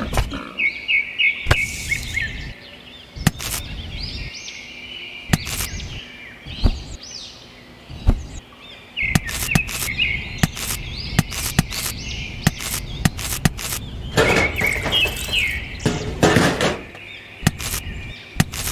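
Birds chirping in bursts of quick repeated notes, several times over, with scattered sharp clicks and taps of small pieces being handled and set down.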